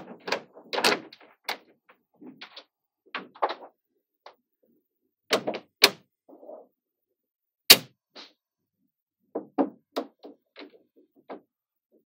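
Small magnetic balls clicking and snapping together as they are handled and set in place: irregular clusters of short, sharp clicks with pauses between them, the loudest a single hard snap about two-thirds of the way in.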